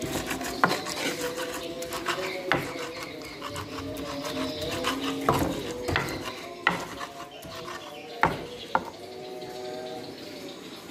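Stone pestle (ulekan) grinding and scraping chillies and tomatoes into sambal in a clay mortar (cobek), with several sharp knocks of stone against clay.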